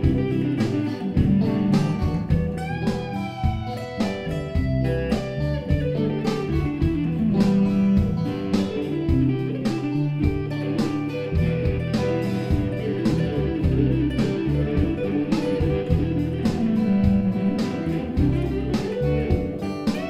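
Background music: guitar-led, bluesy track with a steady beat.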